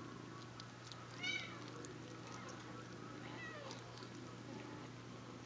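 Hairless kittens mewing: one thin, high mew about a second in, then fainter mews around three to four seconds in.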